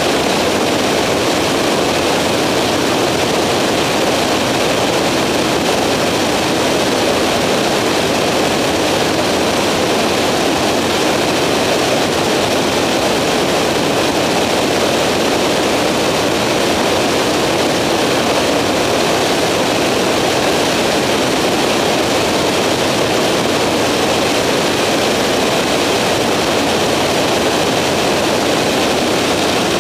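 Skyranger microlight in cruising flight, heard on board: a steady, unbroken drone of engine and propeller mixed with rushing wind.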